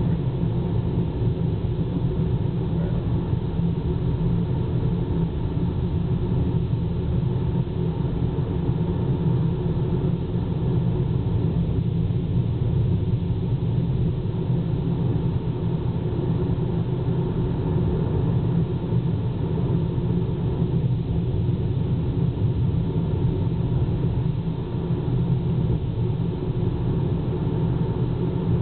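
Steady low rumble of a car being driven on a paved road, engine and tyre noise heard from inside the cabin.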